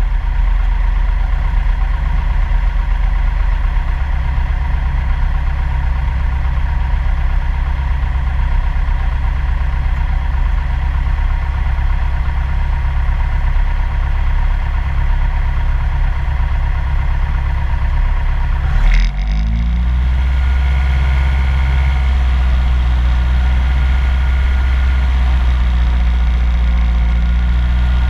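Single-engine light airplane's piston engine and propeller running steadily at low taxi power. A short knock comes about nineteen seconds in, and the engine note rises slightly after it.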